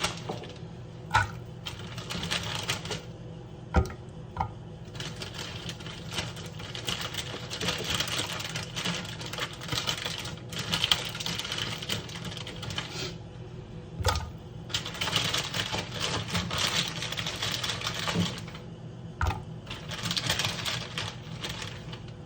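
Kitchen tap running in stretches as carrots are rinsed under it, the water stopping and starting several times, with sharp knocks and clatter from the carrots being handled in the sink. A steady low hum runs underneath.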